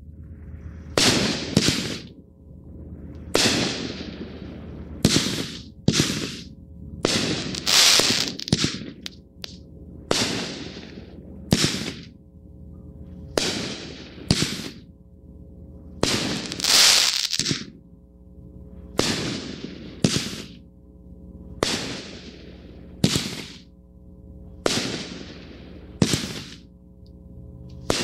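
A 500-gram aerial repeater firework cake firing shots: about twenty sharp bangs at uneven intervals of roughly one to two seconds, some of them in close pairs, each trailing off briefly.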